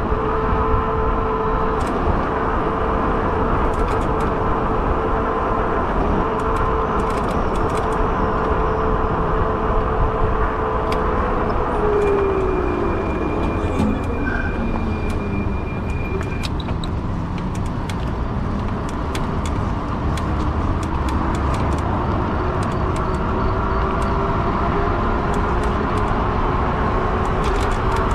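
Fat-tire e-bike's electric motor whining steadily at cruising speed. Its pitch falls as the bike slows about twelve seconds in, then climbs slowly as it speeds up again, over a low rumble of wind and tyres.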